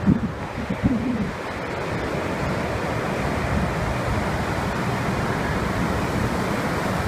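Storm surf breaking and washing up a sandy beach: a steady rush of water that grows a little louder after the first couple of seconds.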